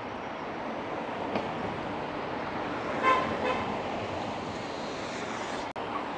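Steady city traffic with passing cars and electric scooters. A vehicle horn gives two short toots in quick succession about three seconds in.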